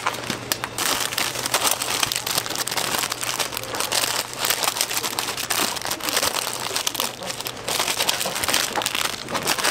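Plastic instant-noodle packets crinkling and rustling as they are handled and snipped open with kitchen scissors: a dense, continuous run of crackles and snips.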